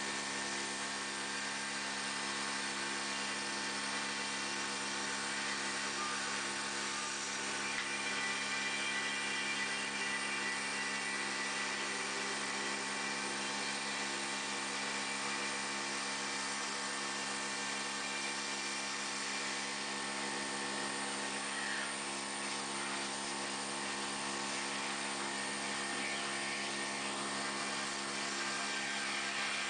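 A CNC router's spindle and its dust-extraction vacuum running steadily: a constant drone of several held tones under a hiss.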